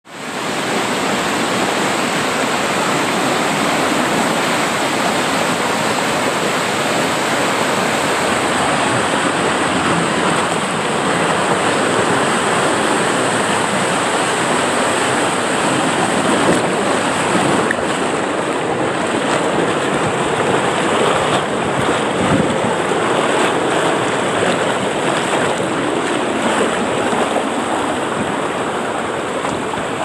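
Rushing, splashing water of a wild-river water slide, heard from a camera riding down the flume in the current: a loud, steady rush of water.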